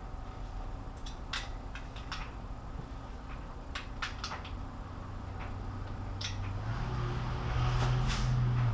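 Light metal clicks and clinks of a breaker bar and socket being handled on the cylinder-head bolts. A low hum comes in about halfway through and grows louder, stepping up slightly in pitch near the end.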